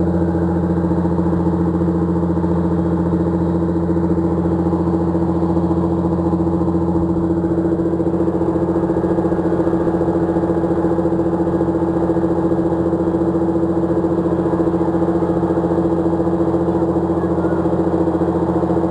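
John Deere 7930 tractor's six-cylinder diesel engine running at a steady, unchanging pitch as the tractor drives over silage, packing it down in a bunker silo.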